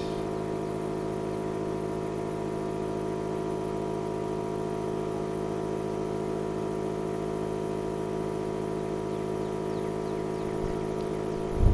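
A machine running steadily at constant speed, a hum made of many even tones that does not change, with a short low thump near the end.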